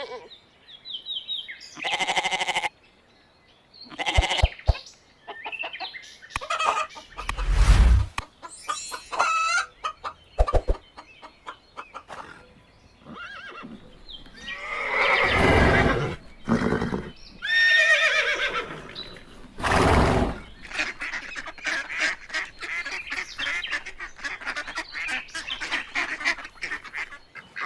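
A run of different farm animal and fowl calls one after another, some long and pitched, some short and sharp, ending in a stretch of many quick overlapping calls.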